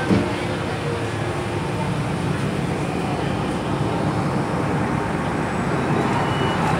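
Steady low rumble and hiss inside the carriage of an MTR M-train, a Metro-Cammell electric multiple unit.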